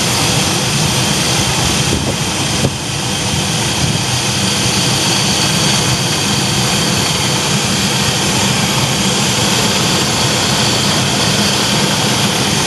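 Chevy Astro engine idling steadily, run to circulate BlueDevil head gasket sealer through the cooling system.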